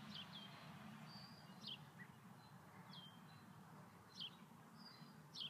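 Faint outdoor quiet with birds chirping: short, high, quick downward chirps every second or so, over a low steady hum.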